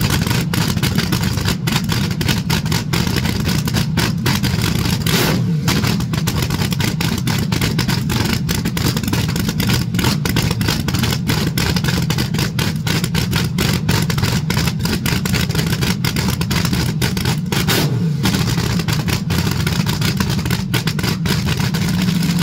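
Supercharged engine of a 1980s rear-engine dragster idling loudly, with an uneven firing beat.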